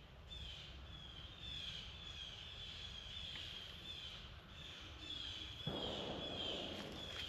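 A squirrel barking: short, high, slightly falling calls repeated about twice a second. A louder low rustle comes in near the end.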